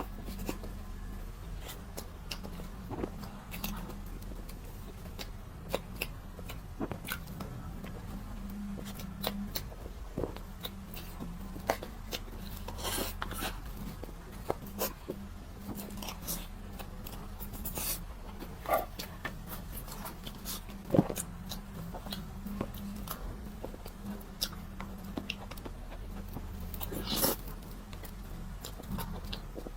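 Close-up eating sounds: scattered mouth clicks, smacks and bites of chewing food, over a steady low hum.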